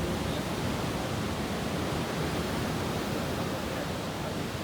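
Steady rush of ocean surf, an even unbroken noise with no separate wave crashes standing out.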